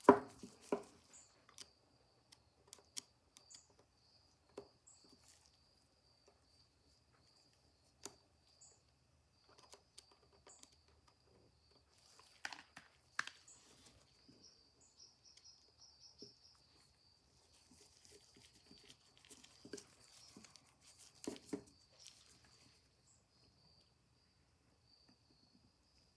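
Sporadic small clicks and taps of little screws and washers being worked off a phonograph governor with a screwdriver and dropped into a small cup, the sharpest click right at the start.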